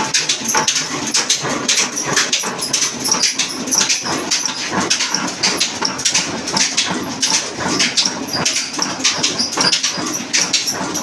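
Old Pakistani-built Naz Industries horizontal stationary diesel engine running, a fast clatter of sharp knocks several times a second over a steady hiss.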